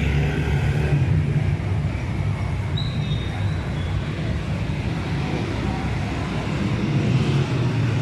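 Steady low rumble of motor traffic and engines, an even wash of noise with no words, and a brief thin high tone about three seconds in.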